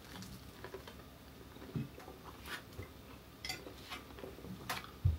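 Faint scattered clicks and light knocks of food and small sauce containers being handled at a table while eating, with a low thump near the end.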